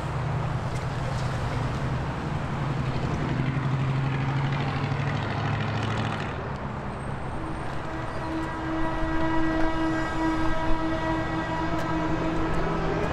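Street traffic noise: a heavy vehicle's engine runs past with a low hum. About seven seconds in, a steady, loud horn-like tone with many overtones joins it and rises near the end.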